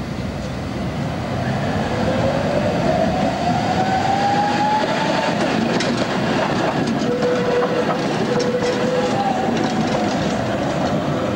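Tatra KT4D articulated tram pulling away from a stop and passing close by. Its traction motors give a whine that rises in pitch over the first few seconds, then the whine holds steadier while the wheels click over the rails as the cars go by.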